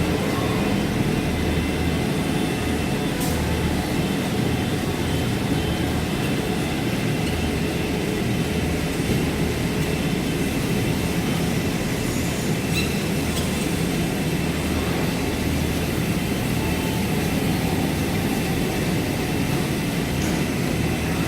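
Automatic fabric-cutting machine running, a steady mechanical drone with a faint tick or two.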